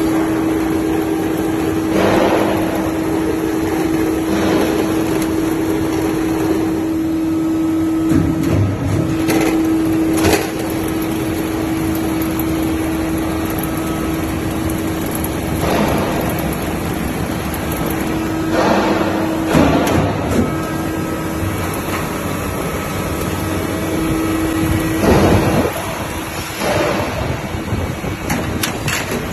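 Ceiling linear strip roll forming machine running, metal strip feeding through the forming rollers: a steady machine hum with a held tone that breaks off and returns a few times, and several short knocks along the way.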